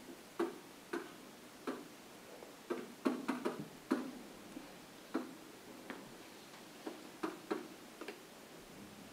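Pen tapping and knocking against an interactive whiteboard as letters are written: irregular sharp clicks, with a quick cluster about three seconds in.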